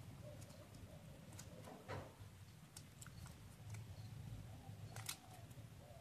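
Faint crinkling and soft clicks of folded paper being pinched and shaped by fingers, with a louder crinkle about two seconds in and another about five seconds in.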